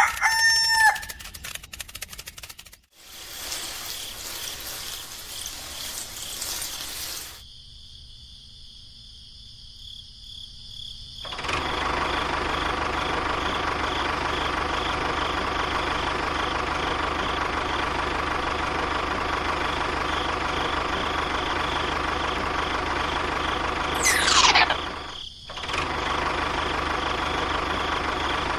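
A rooster crows once at the start. From about twelve seconds on, a steady engine drone runs, broken by one quick falling whistle about twenty-four seconds in.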